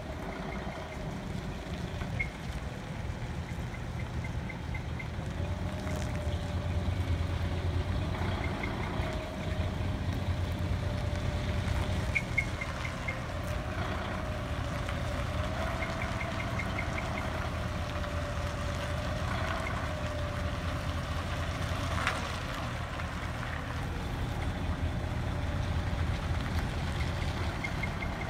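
Heavy truck's diesel engine running at low speed as the truck rolls in and turns, a steady low rumble with a wavering whine above it. Short runs of rapid high ticking come and go, and a brief sharp sound stands out about 22 seconds in.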